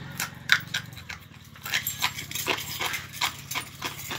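Light-bulb glass crunching as it is chewed: a run of sharp, irregular cracks and clicks, several a second, over a low hum that fades about a second in.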